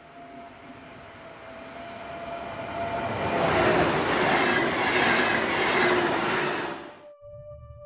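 Electric multiple-unit passenger train approaching and passing at speed: a faint steady whine and a rushing noise that builds to its loudest while the carriages sweep by. The sound cuts off abruptly about seven seconds in, giving way to a held music chord.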